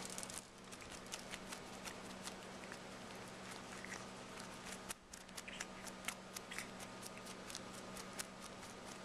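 Irregular small clicks, rustles and scuffles as a cat grabs, bites and kicks at a person's bare arm, over a faint steady hum.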